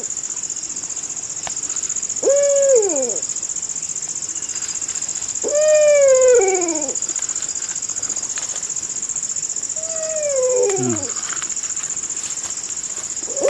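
Steady high-pitched drone of forest insects, with a hooting call repeated four times, about every three to four seconds, each about a second long and dropping in pitch at its end.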